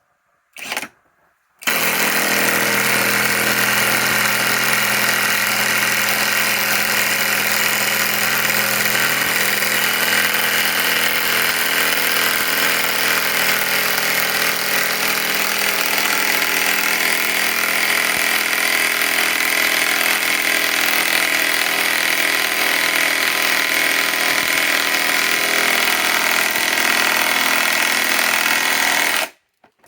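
Hercules compact half-inch cordless impact wrench driving 6-inch lag screws: a brief trigger blip, then hammering without a break for about 27 seconds before it stops suddenly.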